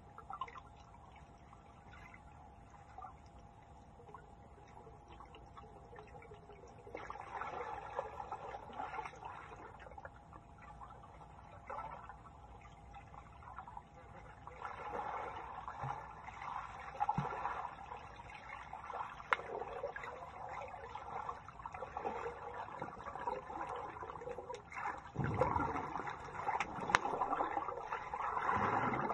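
Swimming pool heard underwater: muffled splashing and bubbling from swimmers moving in the water, starting after several quieter seconds and growing louder toward the end, over a faint steady hum.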